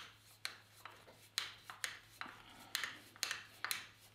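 A wood screw being turned by hand with a screwdriver through a rifle butt plate into the wooden stock, cutting its own threads in the wood: a short creak or click with each twist, about two a second.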